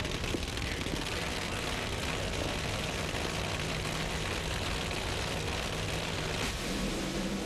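Two supercharged nitromethane Funny Car V8s running at full throttle side by side down the drag strip: a dense, steady engine noise.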